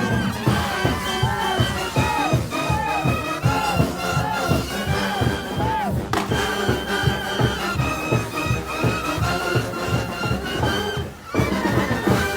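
A Mexican brass banda playing live. Trumpets and trombones play held notes and repeated sliding figures over a steady bass-and-drum beat. The sound drops briefly about eleven seconds in.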